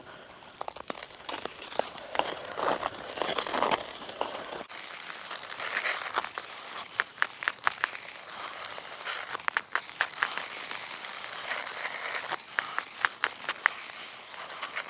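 Ice skate blades scraping and crunching over snow-dusted pond ice, stride after stride, with many sharp clicks along the way.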